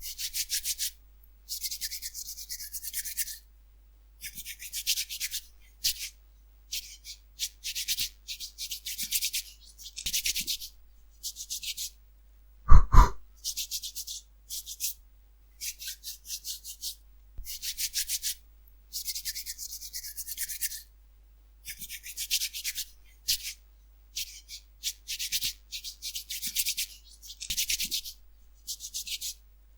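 Scrubbing while cleaning: repeated rough rubbing strokes, each lasting from half a second to a couple of seconds, with short pauses between. About halfway through there is a single loud knock, the loudest sound.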